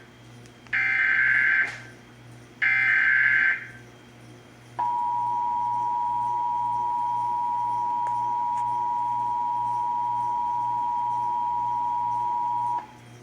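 Emergency Alert System SAME header data bursts: two short buzzy digital bursts about two seconds apart. After a short pause comes the EAS attention signal, a steady two-tone beep held for about eight seconds that cuts off suddenly, marking the start of a national EAS test alert on broadcast radio and TV.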